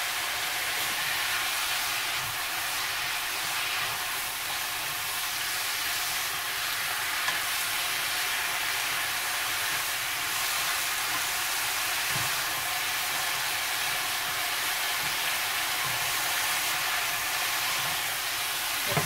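Blanched chwinamul (aster greens) stir-frying in a nonstick wok with a steady sizzling hiss. A wooden spatula and chopsticks toss the greens, adding a few faint soft knocks.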